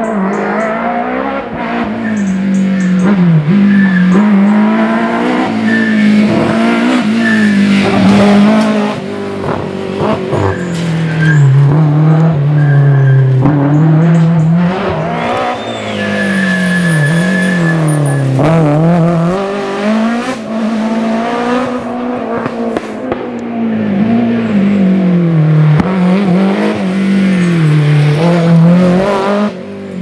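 BMW M3 E30 Group A rally car's S14 four-cylinder engine running hard, its pitch rising and falling again and again as it revs up, shifts and comes off the throttle.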